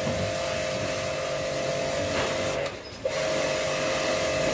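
Portable electric pressure washer pump running with a steady whine while water sprays from the wand. It stops for a moment about two and a half seconds in, then starts again.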